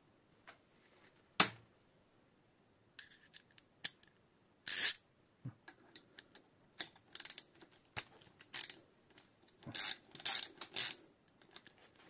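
Socket ratchet turning the bottom bolt of a Fox Float fork's lower leg, heard as short runs of quick ratchet clicks and metal taps, with separate sharp knocks from handling the fork, the first about a second and a half in.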